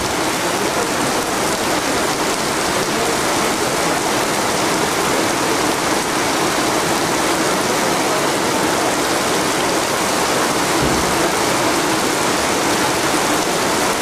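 Heavy tropical downpour: rain pouring down steadily.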